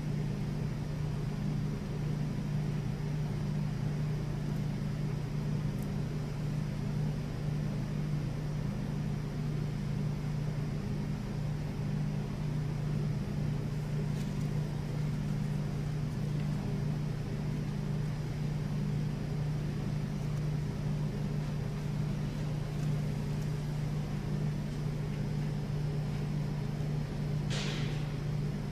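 A steady low hum with no speech over it, and a brief hiss near the end.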